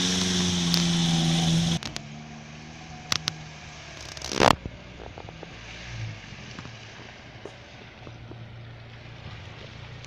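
Lada Niva's engine running hard at a steady pitch as it drives out of deep water, with water splashing. The sound cuts off suddenly about two seconds in. After that the engine is only a faint low hum, with two clicks and one short, loud burst near the middle.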